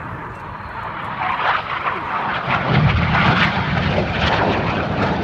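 Jet noise from BAE Hawk T1 trainers' Adour turbofans as the synchro pair flies past. It grows louder from about a second in and is loudest past the middle.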